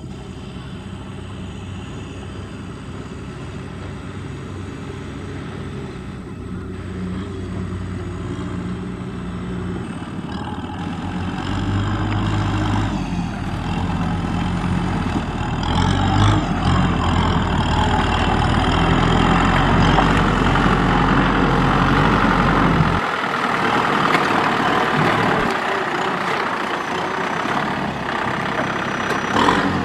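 Kubota M6040SU tractor's four-cylinder diesel engine running under load as the tractor churns through deep mud, growing steadily louder as it comes close, with its engine note shifting a few times partway through.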